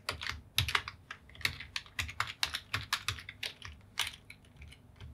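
Computer keyboard being typed on: a string of quick, irregularly spaced keystroke clicks with short pauses between bursts.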